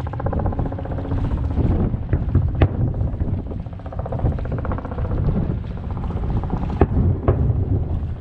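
Distant aerial firework shells bursting over the harbour: a few sharp bangs, in two pairs about two and seven seconds in, over a steady low rumble of wind on the microphone.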